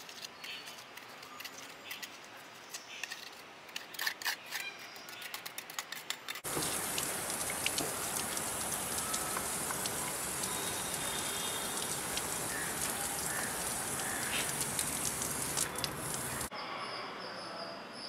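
A small trowel scraping and tapping wet cement between rocks, in a run of sharp clicks. About six seconds in, a garden hose spray nozzle starts with a steady hiss as water washes excess cement off the stonework, then cuts off suddenly near the end.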